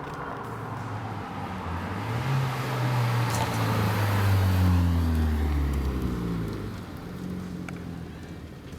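Ford Focus ST's 2.0 L turbocharged four-cylinder through an MBRP 3-inch mandrel-bent cat-back exhaust, revving up about two seconds in and easing back off a few seconds later.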